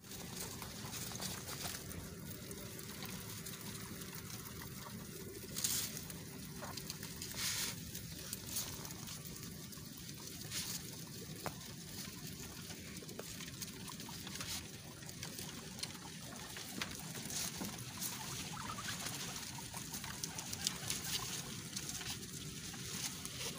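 A crowd of guinea pigs feeding on a pile of fresh grass and leaves: steady rustling and chewing, with scattered small crackles and ticks as they pull at the stems.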